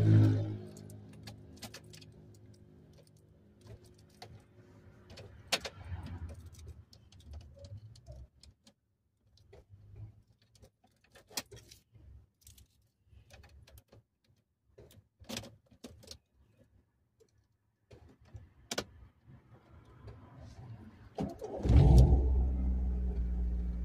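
Keys jangling and clicking in a car's ignition for several seconds, then, near the end, the old VW Gol's engine cranks and starts, running loudly. At the start an earlier engine sound dies away.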